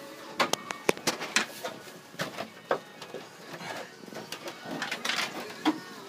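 Irregular light clicks, knocks and rattles as a wall-mounted split air conditioner's indoor unit is handled and shifted on the wall while its line set and drain line are fed in.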